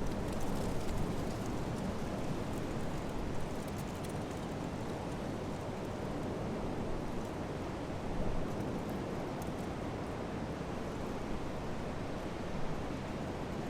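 Gusty wind buffeting the microphone: a steady rushing noise, heaviest in the low end, with no clear engine tone.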